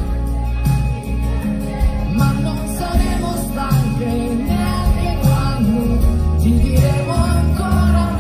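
Live band playing an instrumental passage with no lyrics, a drum beat under a bending lead melody line, as heard from the audience.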